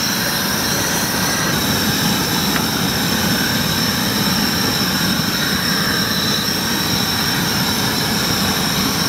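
Propane tiger torch burning steadily, its flame held into a fire of wet wood to make it catch.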